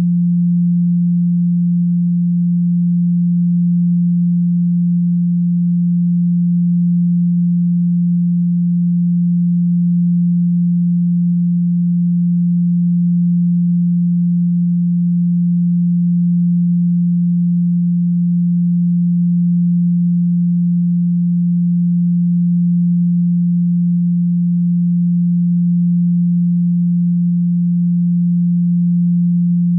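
A steady, unbroken low pure tone at 174 Hz: a sine-wave solfeggio frequency tone.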